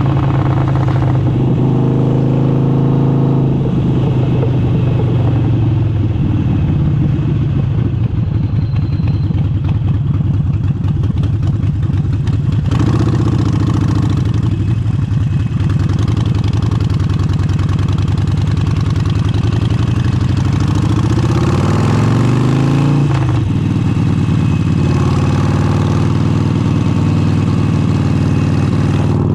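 Harley-Davidson Forty-Eight's air-cooled Sportster V-twin with an aftermarket exhaust, running loud under way. The engine note eases off early, holds, then climbs steadily under acceleration about two-thirds in before dropping sharply at a gear change and pulling again.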